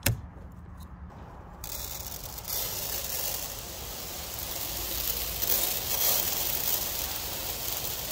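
A knife cuts the fabric of a spent super sock bean bag round, with a sharp click and a few faint clicks. From about a second and a half in, its little metal BBs pour out and patter across a hard surface as a steady rain-like hiss, loudest a little past the middle.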